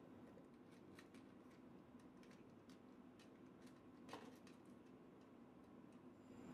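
Near silence with faint light ticks about every half second, and one slightly louder click about four seconds in: small metal parts, the Marlin .22's trigger assembly, bolt and flange nut, being handled and fitted into the Fiberforce gunstock.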